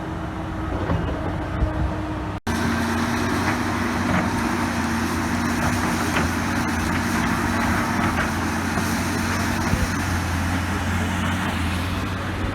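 Heavy construction machine's engine running steadily, with a momentary break about two and a half seconds in.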